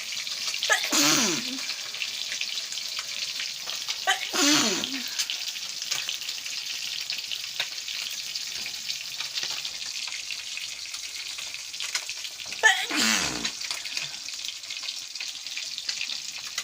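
A woman sneezes three times: about a second in, about four seconds in, and near the end. The sneezes are set off by chili fumes from the cooking. Food sizzles steadily in a frying pan throughout.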